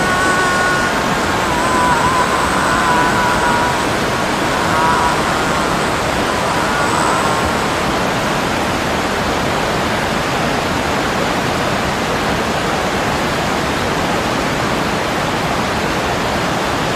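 Loud, steady rushing of a waterfall and churning white water, a dense even hiss with no breaks. A few faint high tones sound over it during the first half.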